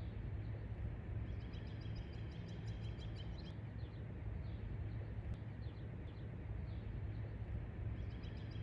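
Outdoor ambience: small songbirds chirping in quick runs, one from about a second in and another near the end, over a steady low hum.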